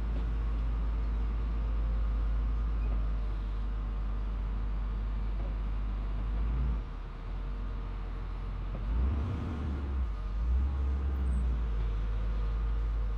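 Case 621C wheel loader's diesel engine running under load as it pushes a truck chassis with its forks, dropping briefly about seven seconds in, then revving harder twice near the end.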